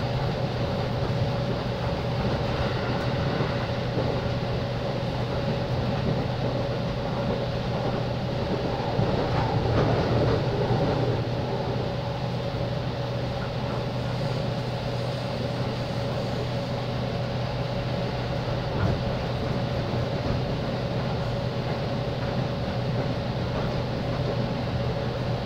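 Sound of a JR East 205-series electric commuter train: a steady hum with two constant tones over an even rumble, a little louder for a couple of seconds about ten seconds in.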